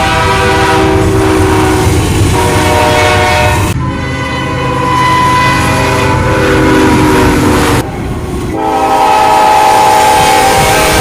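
Diesel freight locomotive's air horn sounding a held multi-note chord over the rumble of the train on the rails. The chord breaks off abruptly and resumes twice, about four and eight seconds in.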